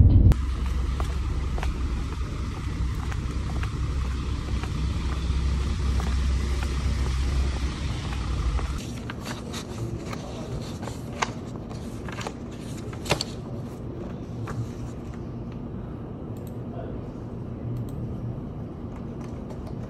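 Steady low rumble inside a car's cabin. About nine seconds in, it cuts to a quieter room where sheets of paper are handled, with a few sharp clicks and rustles.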